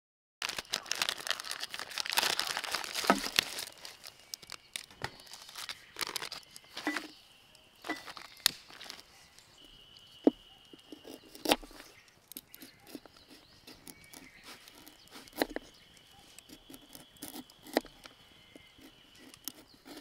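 Plastic crinkling for the first few seconds, then a small folding knife scraping the skin off a fresh wasabi root on a wooden cutting board: scattered light scrapes and clicks of the blade on the board.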